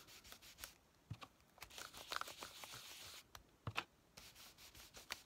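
Faint paper handling on a craft desk: light rustling with scattered small clicks and taps.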